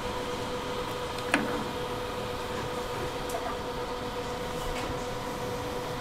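Steady mechanical hum at a street-food stall, with one sharp click about a second in and a few faint ticks as wooden fish-cake skewers are handled over a steel broth tray.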